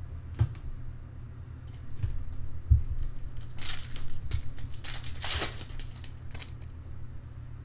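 A foil trading-card pack being torn open and its wrapper crinkled, with rustling and the soft knocks of cards being handled; the rustling comes in bursts, loudest past the middle, over a steady low hum.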